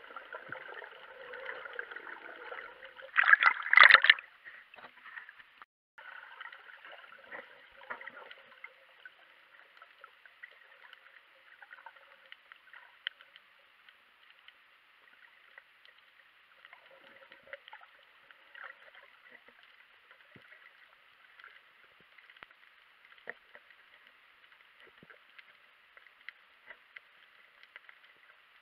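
Underwater sound picked up by a submerged camera: a faint steady hiss with scattered light crackles and clicks. About three seconds in there is a loud rush of water and bubbles lasting about a second.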